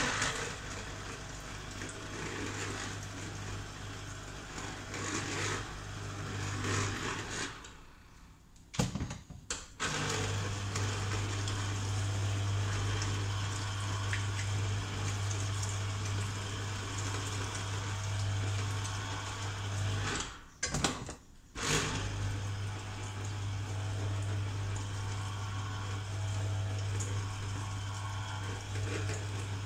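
Electric juicer motor running as fruit is fed into its chute, a steady hum with grinding noise over it. It stops briefly twice, about eight seconds in and again about twenty seconds in, then runs on.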